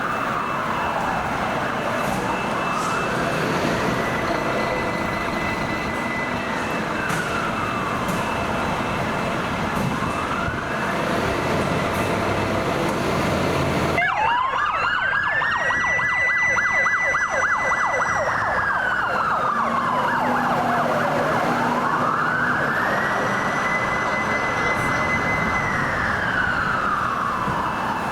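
Fire truck siren on a slow wail, each cycle rising to a high held tone for a couple of seconds and then falling, about every six to seven seconds, over traffic noise. About halfway the background noise drops abruptly and the siren comes through louder and clearer.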